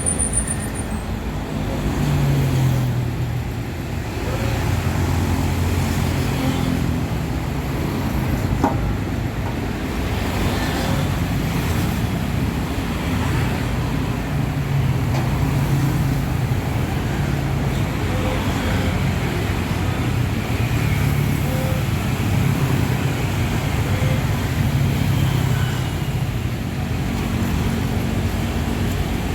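A motor vehicle's engine running with a steady low hum that swells and eases every few seconds, amid road traffic noise.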